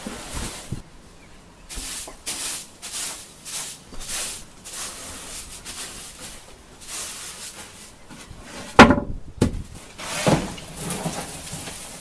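A shovel scraping hay across a concrete floor, then a hand brush sweeping spilled grain over wooden floorboards in repeated short strokes. A loud thump about nine seconds in, with a couple of smaller knocks after it.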